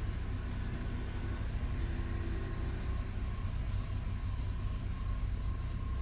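Car engine idling, heard inside the cabin as a steady low rumble, with a faint steady high tone above it.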